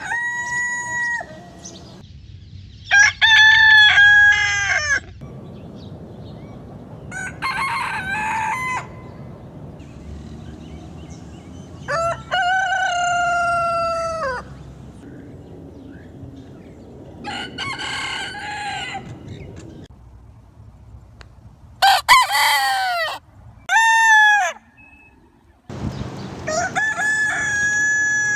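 Roosters crowing: about eight separate cock-a-doodle-doos a few seconds apart, each lasting one to two and a half seconds and dropping in pitch at the end, from several different birds.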